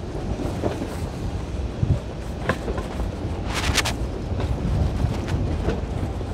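City street noise: a steady low rumble with scattered sharp clicks and knocks, a quick cluster of them about three and a half seconds in.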